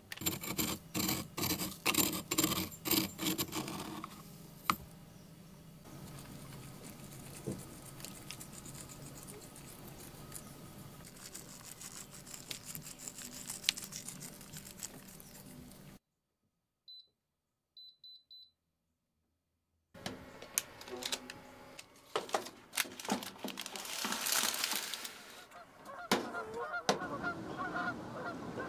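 Canada geese honking, a flock calling again and again. The sound cuts out to dead silence for a few seconds in the middle, broken only by a few faint high beeps.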